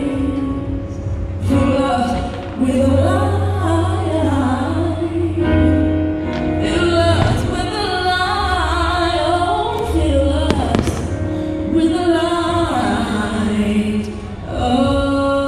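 A sung song with a choir-like backing and steady bass, the soundtrack of a pyromusical fireworks show, with a few firework bangs over it.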